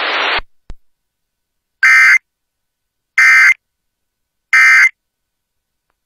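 Emergency Alert System end-of-message signal: three short bursts of warbling digital data tones, evenly spaced about 1.3 seconds apart, marking the end of the broadcast alert. Before them, a hiss cuts off about half a second in.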